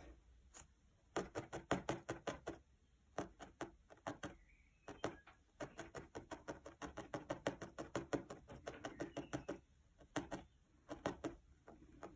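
Felting needle stabbing repeatedly through loose wool and a felt backing into a foam pad, fixing a wool petal in place: runs of quick soft taps, about five or six a second, broken by short pauses.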